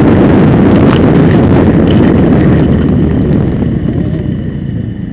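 Heavy wind rumble on the microphone with road noise from a moving vehicle, easing off over the last second or two.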